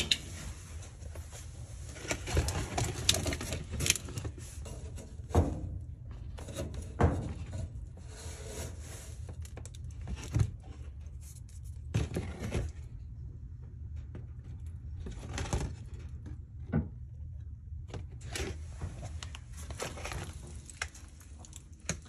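Irregular knocks, scrapes and crinkling as a flexible foil dryer vent duct and its lint are handled, over a faint steady low hum.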